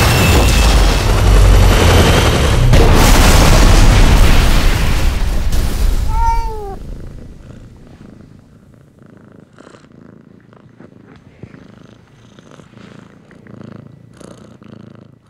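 A loud cinematic explosion sound effect with deep rumble fades away over about six seconds. A single short cat meow follows, then a domestic cat purring softly.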